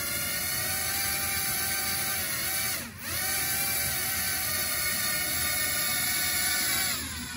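Small electric motors of a homemade wheeled drone whining steadily under throttle. The pitch dips sharply and comes straight back about three seconds in, then falls away near the end as the throttle is eased off.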